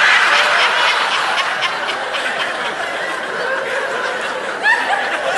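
Live audience laughing, the laughter easing a little after a few seconds.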